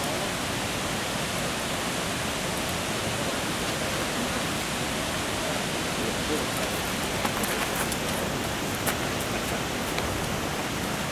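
Steady, even rushing noise, like flowing water, with a few faint ticks over the second half.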